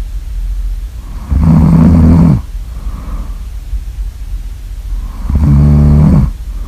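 Loud snoring: two long snores about four seconds apart, each lasting about a second, with a softer breath out between them.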